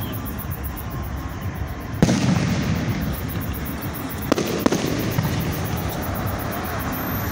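Aerial fireworks bursting overhead: a loud boom about two seconds in that rumbles on afterwards, then two sharp cracks a little past halfway, over the steady low rumble of the ongoing display.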